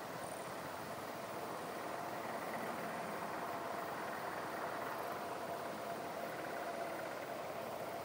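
Steady open-air meadow ambience: an even rushing noise with a faint steady hum underneath and no distinct events.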